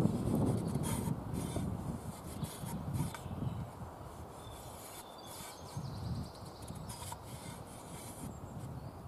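The steel blade of a Cold Steel Special Forces shovel being rubbed by hand in repeated strokes, growing fainter toward the end.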